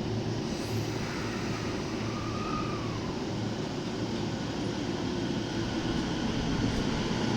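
E231-500 series electric commuter train running at a station platform: a steady running noise that grows a little louder near the end, with a faint short whine about two seconds in.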